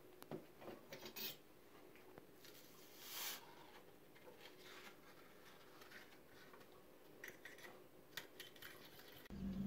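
Faint kitchen handling sounds: jelly powder poured from a paper packet into a saucepan of water with a soft rustle, then light clicks and scrapes of a small metal utensil stirring in the pan. Right at the end a steady low hum cuts in.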